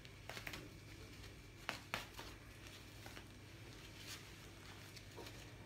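Faint handling noise from a silicone reborn baby doll being moved about on a plush blanket: a few soft taps and cloth rustles, two slightly louder ones about two seconds in.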